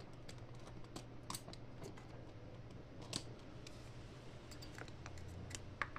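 Faint, scattered light clicks from a circuit board and its wire connector being handled, over the steady hiss of an electric fan running close by.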